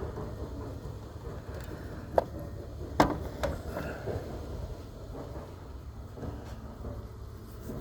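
Wind rumbling on the microphone over steady background noise, with three sharp clicks or knocks a little over two to three and a half seconds in, the middle one the loudest.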